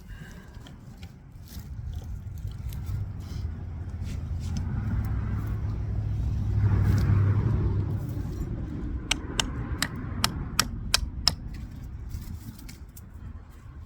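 A motor vehicle's engine hum swells to a peak about halfway through and then fades, like a vehicle passing. It is followed by a quick run of about seven sharp clicks or knocks.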